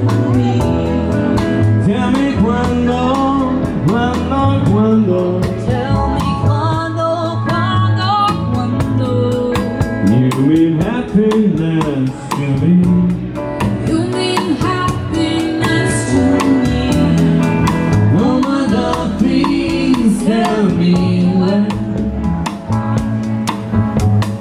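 Small live band playing a lively instrumental passage: upright double bass, drum kit with cymbals and electric guitar.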